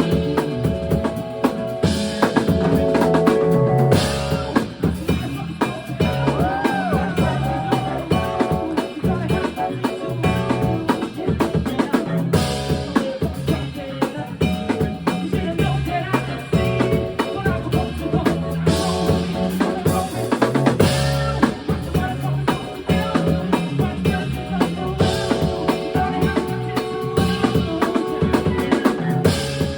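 Funk band playing: an electric bass line stepping between notes over a drum kit with snare and rimshot hits and held keyboard chords, with several cymbal crashes.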